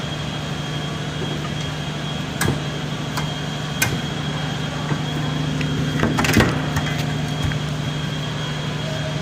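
Steady workshop machine hum, low-pitched with a thin high whine, broken by a few sharp knocks and clanks, a cluster of them a little past the middle.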